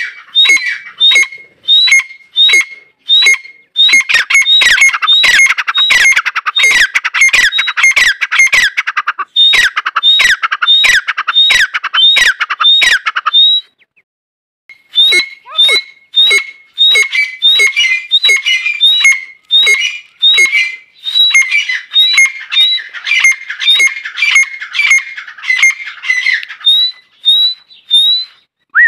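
Female grey francolin (teetar) calling: loud, sharp calls repeated about twice a second, with a pause of about a second near the middle.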